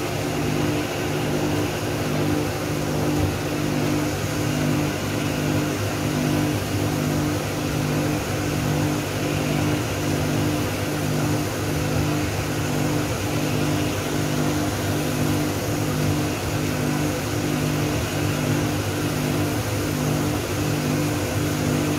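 Coffee roaster's cooling tray running: motor-driven stirring arms sweep freshly roasted coffee beans around the tray, a steady mechanical hum with the rush and rustle of beans and cooling air. This is the cooling stage just after the beans are dropped from the drum.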